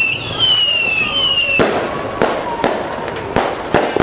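Whistling fireworks: three falling whistles one after another, then from about a second and a half in, a string of sharp firework bangs at uneven intervals.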